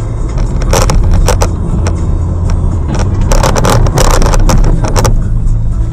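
A car's own engine and road noise heard inside the cabin as a loud, steady low rumble, with a run of sharp clicks and rattles between about one and five seconds in.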